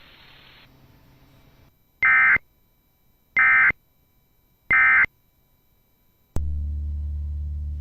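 Emergency Alert System end-of-message signal: three short, shrill bursts of SAME digital data tones, about a second and a half apart. Near the end a low piano note begins and rings on.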